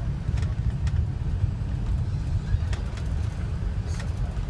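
Steady low rumble of cabin noise inside an Airbus A380 on approach to landing, with a few faint ticks.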